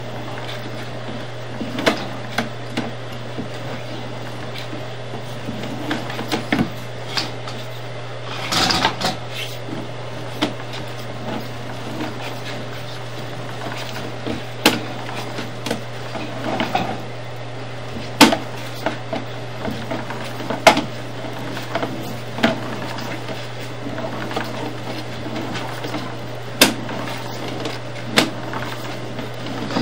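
Sewer inspection camera's push cable being reeled back out of a sewer line: irregular clicks and knocks from the cable and camera head over a steady low electrical hum.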